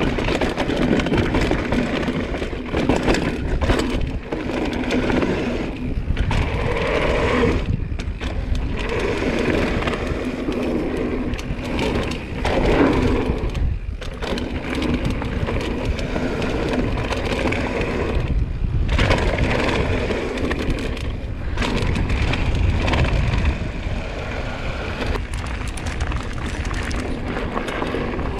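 Propain Tyee enduro mountain bike riding down a dry trail: tyres rolling and crunching over dry dirt, clattering over rocks and roots, with a steady rush of wind on the microphone.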